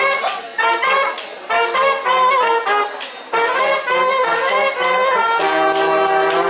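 Background music led by brass instruments, a run of short notes that settles into a held chord near the end.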